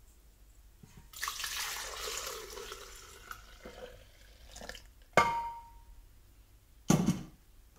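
Milk pouring from a pot into a glass blender jug for about three seconds and trailing off. Then a sharp clink with a brief ring, and a thump near the end.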